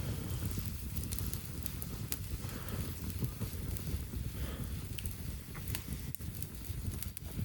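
Campfire crackling, with scattered sharp pops at uneven intervals, over a low rumble of wind on the microphone.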